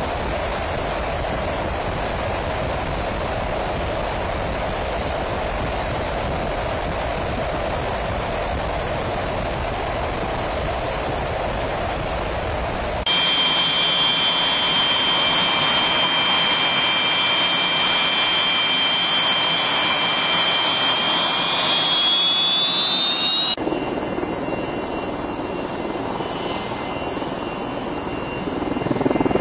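Jet aircraft noise in three cut-together parts: first a steady, even rush of air and engine noise as heard in flight; then, a little before halfway, the high whine of an EA-6B Prowler's turbojets on the ground, several whistling tones held steady that rise in pitch before cutting off sharply; then a quieter engine rush with a faint whine that swells near the end.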